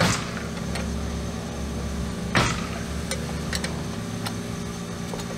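Two sharp metal knocks, one at the start and one about two and a half seconds later, from hand work on drum brake shoe hardware, over a steady low hum.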